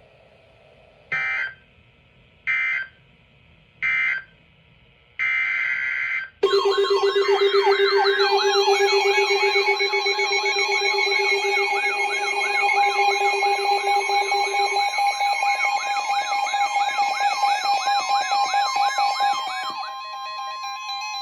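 Emergency Alert System broadcast tones. Three short bursts of digital data tones about a second apart and a longer burst are followed by a loud warbling, siren-like alert tone over steady tones. The alert tone steps down quieter near the end.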